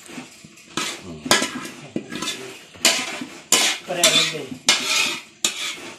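Metal spatula scraping and knocking against a metal cooking pan as thick, wet taro leaves in coconut milk are scraped out into a stainless steel tray: a run of sharp scrapes and clanks, about one or two a second.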